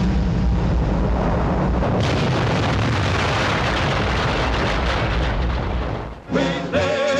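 Cartoon cannon blast: a long, rumbling explosion that goes on for about six seconds, then cuts off. Orchestral music starts near the end.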